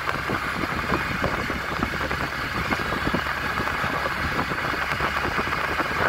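Small engine of a moving three-wheeled auto-rickshaw running steadily, with a constant clatter of rattles and road noise.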